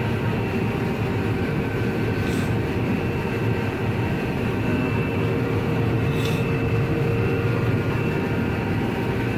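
John Deere 9750 combine running while cutting wheat, heard from inside the cab: a steady mechanical drone with a steady high whine, and two short hisses about two and six seconds in.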